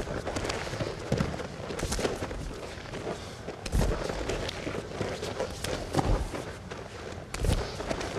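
Bare feet stepping and thudding on foam wrestling mats as two grapplers drill arm drags with a level change and penetration step: irregular thuds, about one every second or two.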